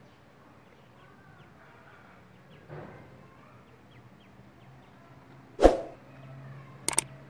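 Grey francolin chicks giving faint, short high peeps, about three a second. About five and a half seconds in comes a loud sudden whoosh-like hit, then two quick clicks near the end, from the subscribe-button animation.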